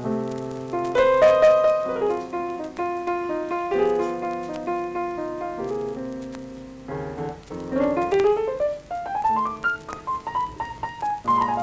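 Background piano music: slow held chords, then a quick run of notes climbing in pitch from about seven seconds in, and a falling run near the end.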